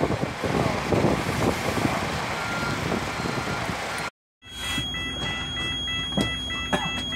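Wind noise and outdoor bustle beside the shuttle coach. After a break, from inside the bus, a warning beeper repeats about three times a second over a steady hum. The beeping is typical of the bus's reversing alarm.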